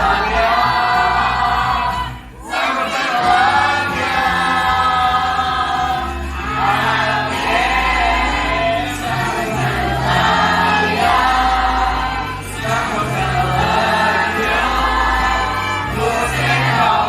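A musical-theatre song: several voices singing together over instrumental accompaniment with a bass line that moves every second or two. There is a brief break in the singing about two seconds in.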